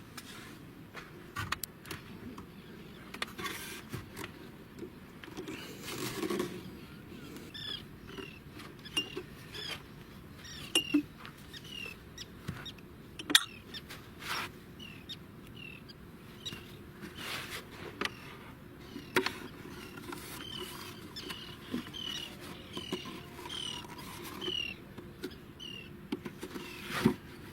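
Short falling chirps from an animal, repeated about once a second, with scattered sharp knocks and taps.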